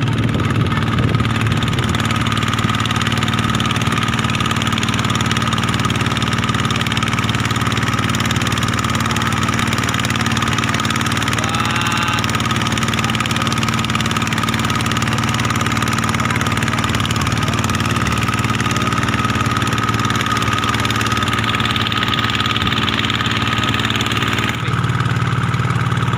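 Engine of a small wooden passenger boat running steadily as the boat cruises across open water, a constant drone with a steady hum; the tone of the drone changes abruptly near the end.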